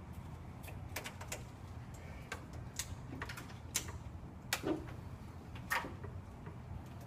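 Irregular sharp clicks and light taps from hand work on window security film, about a dozen spread unevenly, over a steady low hum.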